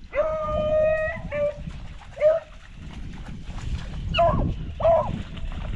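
Beagle baying on a rabbit's trail: one long held bay about a second long, then four short bays over the next few seconds. Steady low noise runs underneath.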